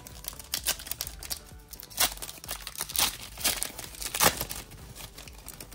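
Trading-card pack wrapper from a 2023-24 Panini Select Basketball mega box being torn open and crinkled by hand, in irregular crackles with the sharpest about two, three and four seconds in.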